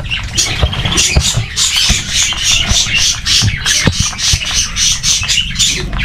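A flock of budgerigars chattering as they feed on seed: a dense, continuous run of short high chirps, several a second.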